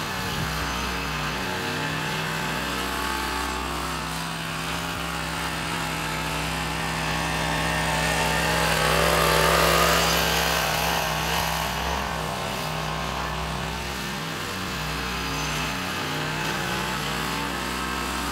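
Mini Brutus ride-on roller's motor running steadily as the roller drives past, swelling to its loudest about halfway through as it comes closest, then fading as it moves away. The owner finds it struggling to move the roller and suspects a gearbox problem or a worn-out motor.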